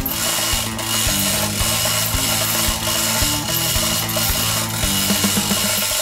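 Manual chain hoist ratcheting as its hand chain is pulled to shift a suspended engine, the pawl clicking over background music with a steady beat.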